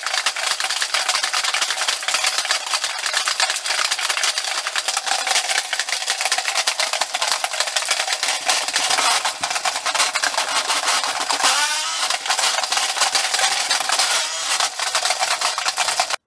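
Small electric motor and plastic gear train of a crawling octopus toy overdriven at 10 V from a bench power supply, running as a loud, continuous rattling whir of dense clicking while its tentacles flail. A short wavering tone comes in about twelve seconds in, and the sound cuts off abruptly at the end.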